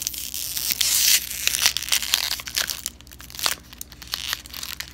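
Crinkly wrapper of a Lindt Lindor chocolate truffle being twisted and picked open close to the microphone: dense crackling and crinkling, thickest in the first second or so, then sparser crinkles.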